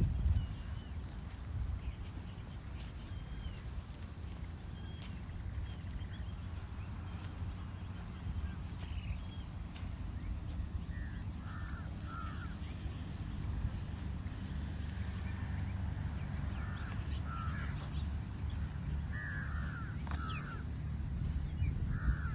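Crows cawing, a few harsh calls in the second half, over a steady high-pitched insect-like drone, faint chirps of small birds and a constant low rumble.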